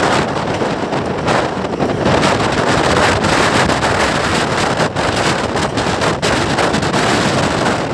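Wind buffeting the microphone held out of a moving passenger train, over the steady running noise of the coaches on the track.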